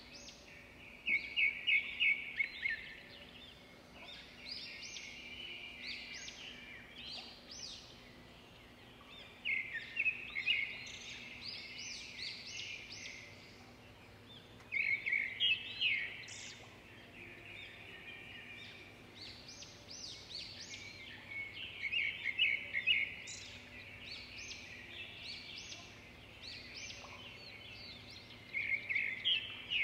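A songbird singing short, rapid chirping phrases, about one phrase every six seconds, over a faint steady hum.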